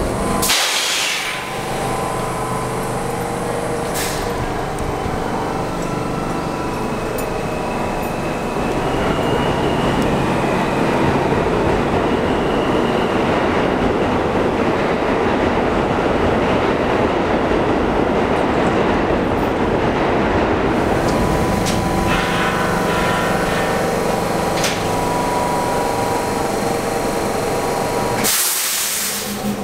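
New York City subway train standing at a station platform, its onboard equipment giving off a steady hum. About a third of the way in, a louder, even rushing noise swells up and fades again about two-thirds through, with the hum carrying on and a few sharp clicks.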